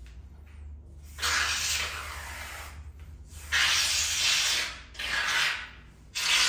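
Aerosol shaving foam sprayed from a can onto a clipped-bald scalp, lathering it for a razor shave. It comes as four sprays: the first and longest about a second in, then three shorter ones.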